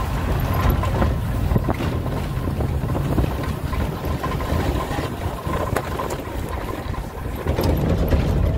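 Maruti Gypsy's engine running steadily as the 4x4 drives slowly over rough, bumpy ground, heard from inside the cabin, with a few sharp knocks and rattles from the body and wind buffeting the microphone.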